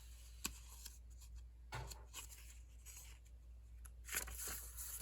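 Sheets of paper rustling as they are picked up and laid onto a stack, with a sharp tick about half a second in and a longer rustle near the end.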